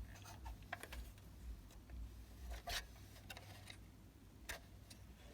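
Faint, irregular small clicks and taps over a low steady hum, the loudest about four and a half seconds in.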